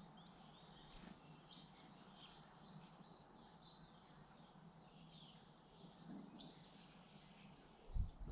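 Small garden birds chirping and calling: a busy jumble of short high notes overlapping one another. A brief low thump comes near the end.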